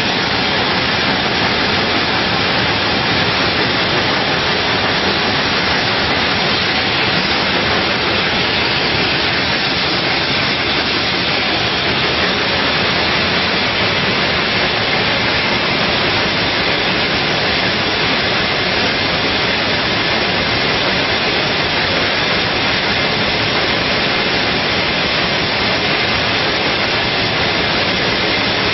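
24,000-bottle-per-hour bottling combi block running: a steady, dense hiss of machinery and air from the rotary filler and capper.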